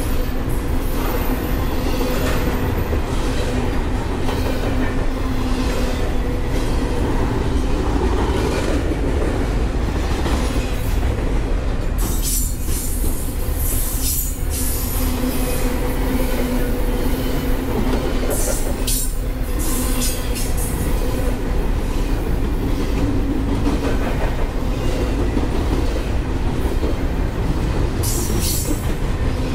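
Double-stack container freight train rolling past on the adjacent track: a steady, loud rumble and clatter of steel wheels on rail, with a faint ringing hum and short high-pitched squeals now and then.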